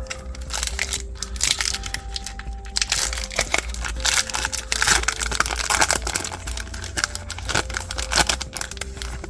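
Foil trading-card pack wrapper crinkling and crackling as it is handled and opened, with cards being shuffled. Faint background music plays underneath.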